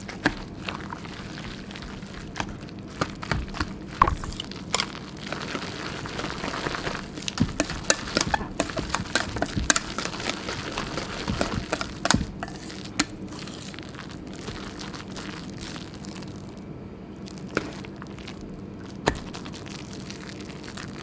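Wire whisk working a thick fish-paste and egg-white batter in a stainless steel bowl: irregular clinks of the wires against the bowl, busiest through the first two-thirds and thinning out near the end.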